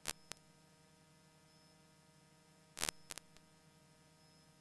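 Faint steady electrical hum broken by sharp clicks: two right at the start and a quick cluster of three or four about three seconds in.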